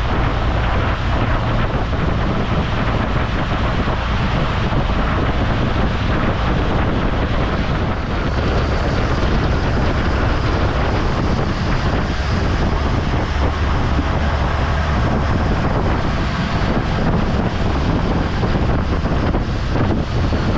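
Steady rush of wind over the microphone on a moving boat, with the boat's engine and water noise underneath.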